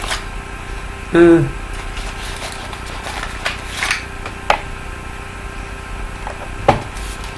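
A few scattered small clicks and rustles of a gel eyeliner's plastic packaging being handled and opened by hand, with a brief murmured voice about a second in.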